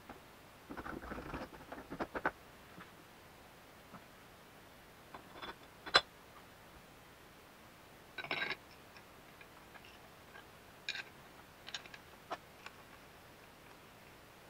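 Scattered small clicks, taps and short scrapes of metal parts being handled and fitted by hand on a machined aluminium engine casing, including an Allen key working screws in its cover plate. The sharpest click comes about six seconds in, with a short scrape a little after eight seconds.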